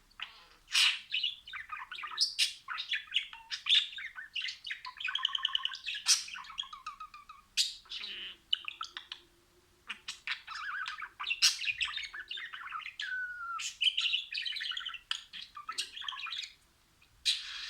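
Budgerigars chattering and warbling: a fast, continuous run of chirps, clicks and squawks with short whistled notes, pausing briefly twice.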